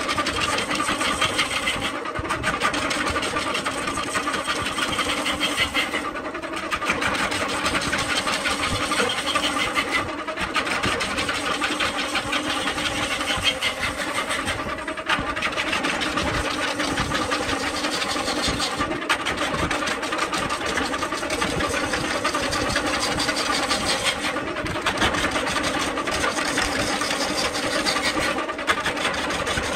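Belt-driven wood lathe running while a hand-held chisel cuts into a spinning coconut palm log: a steady motor hum under a dense, rasping cut. The cutting noise briefly thins out about every four seconds.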